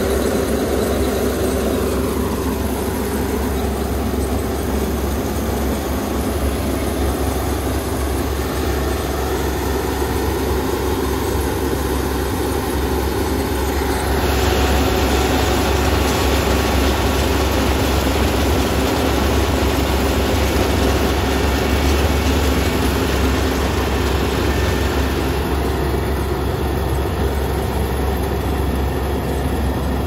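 Kubota ER470 combine harvester running as it harvests rice: a steady, dense engine and machinery drone that gets a little louder and brighter about halfway through.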